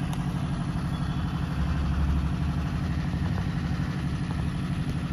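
Steady low drone of an idling engine with a fast, even pulse, swelling slightly about two seconds in.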